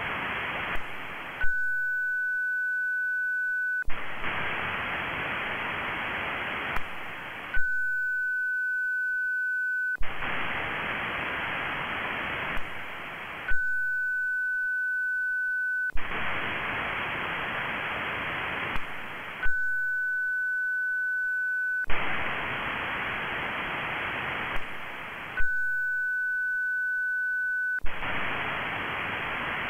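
Amateur radio EME (moonbounce) station on VHF, running WSJT in echo mode, cycling about every six seconds. Each cycle gives about two and a half seconds of a single steady high tone while it transmits, then receiver hiss as it listens for its own echo off the Moon. A sharp click comes at each switch between transmit and receive.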